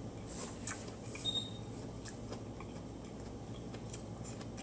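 A person chewing food at the table, with a few light clicks of chopsticks against a ceramic rice bowl.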